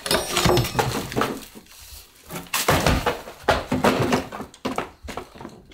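Terracotta hollow-brick blocks and mortar rubble knocking together and breaking as they are thrown out of a wall opening. A string of sharp knocks, loudest at the start and again about three to four seconds in.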